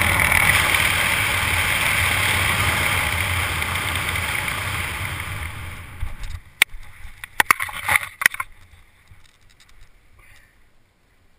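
Wind rushing over the camera's microphone as a skydiver descends under a parachute canopy, fading as the canopy slows for landing. About six seconds in come several sharp knocks and thuds as the jumper touches down on the grass.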